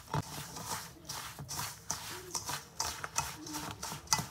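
Hands rubbing oil into coarse semolina in a stainless-steel bowl: a run of gritty rustling and scraping strokes, several a second. It is the rubbing-in stage of harcha dough, where the oil is worked into the dry semolina before milk goes in.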